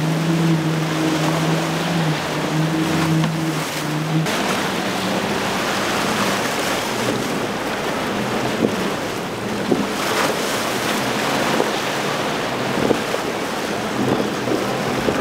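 Multiple outboard engines on a center-console boat running hard through rough inlet water, a steady engine hum over crashing wake and spray, with wind buffeting the microphone. About four seconds in the engine hum cuts off abruptly and the sound becomes mostly the rush of waves, spray and wind, with a faint engine drone and a few sharp knocks.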